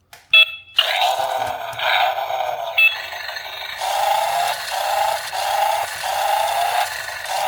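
Electronic sound effects from a battery-powered toy vehicle's speaker: a short beep, then a continuous synthesized sound that pulses about once a second, with a second short beep about three seconds in.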